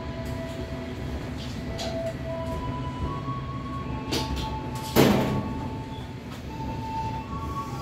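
Passenger train rolling at walking pace over station trackwork, a steady rumble with scattered wheel knocks and one loud clank about five seconds in.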